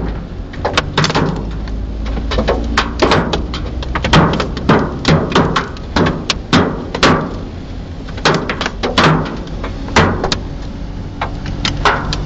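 Hailstones striking the car's roof and windscreen, heard from inside the cabin: loud, irregular knocks, one to three a second, over a steady hiss of heavy rain and a low rumble of the car.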